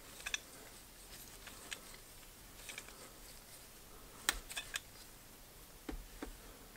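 Faint, scattered small clicks and ticks as a helicoil installation tool is turned by hand, threading a coil insert into a freshly tapped exhaust manifold bolt hole; a few sharper clicks come together past the middle.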